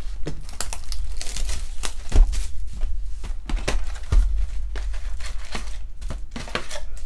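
Cardboard trading-card box being torn open and its flap lifted, with foil card packs rustling and crinkling as they are pulled out. Two dull knocks from handling the box, about two and four seconds in.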